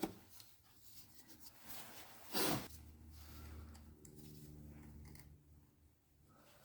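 Faint handling sounds of work in a car's engine bay: a click at the start and a short scrape or rustle about two and a half seconds in, then a faint steady low hum.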